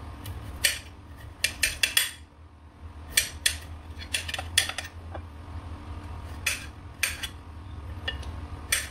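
Kitchen knife slicing carrots on a ceramic plate: a string of sharp, irregular clicks as the blade cuts through and taps the plate.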